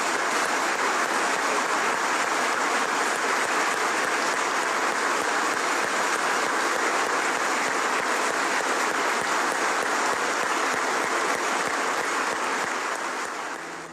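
A church congregation applauding, a long standing ovation of steady, dense clapping that fades out near the end.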